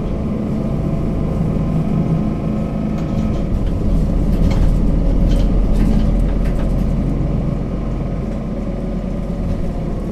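Mercedes-Benz Citaro C2 city bus engine running steadily, heard from inside the bus, with a few light clicks or rattles around the middle.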